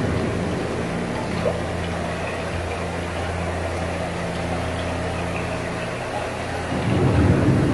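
Steady low hum and water wash of the Living with the Land ride boat moving through its channel. About seven seconds in, a louder rumbling rush starts: the rainforest scene's rain-and-thunder effect.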